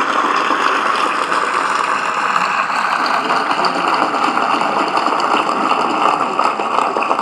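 Large crowd applauding steadily, a dense even clapping.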